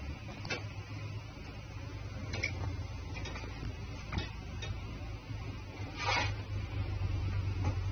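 Scattered light taps of a fingertip on a phone's touchscreen, with one longer brushing swipe about six seconds in, over a steady low hum.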